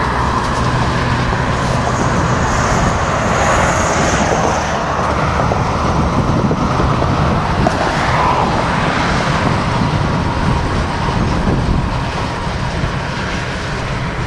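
Freight train cars rolling past on steel rails, a steady rumble of wheels and car bodies, with a faint high whine a few seconds in.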